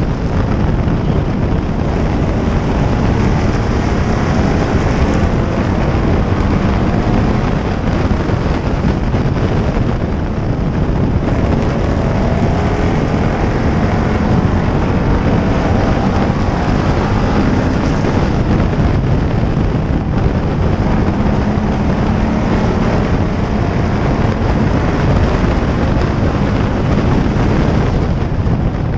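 Pure stock race car engine running hard at racing speed, mixed with heavy wind rush on the microphone. The engine pitch rises and falls slightly through the turns.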